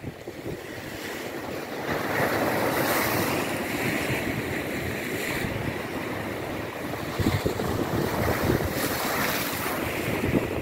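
Sea waves breaking and washing ashore, with surges of surf about two seconds in and again near the end, and wind buffeting the microphone.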